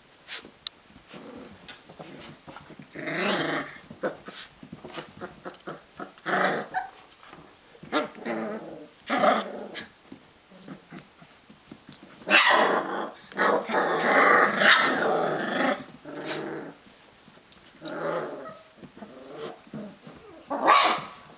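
Rhodesian Ridgeback puppies, about three weeks old, growling in bouts while play-wrestling. The longest and loudest bout comes a little past halfway.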